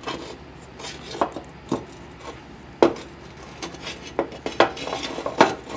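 Irregular plastic clicks, taps and rattles of a wiring connector clip being worked at by hand, the sharpest taps about three seconds in and near the end.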